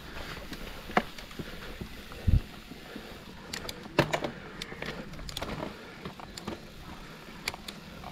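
Mountain bike clattering over rough ground: scattered sharp knocks and clicks from the bike, the heaviest a dull thump a little over two seconds in, over a steady rushing noise.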